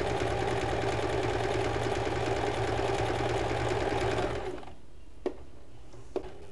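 Usha Janome Fashion Maker electronic sewing machine running steadily while stitching a zigzag seam. It stops about four seconds in, and a couple of light clicks follow.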